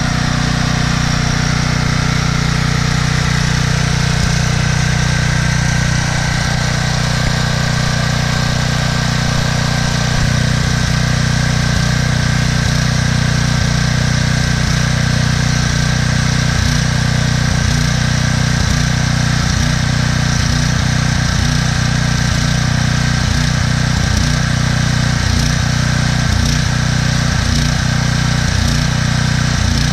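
Troy-Bilt 8000-watt generator's 15 hp Briggs & Stratton engine running steadily with its fuel shut off, burning the last of the gas out of the carburetor.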